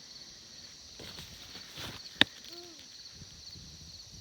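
Soft rustling and shuffling movement, with a single sharp click a little over two seconds in.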